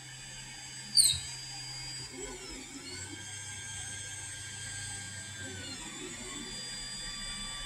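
Ender 3 3D printer moving its print head along the X axis: the stepper motors whine in steady tones that glide down and back up as the moves slow and speed up, and a short, sharp, high squeak about a second in. The squeak is a fault on the X axis, heard at spots along the axis only when the head travels toward the right.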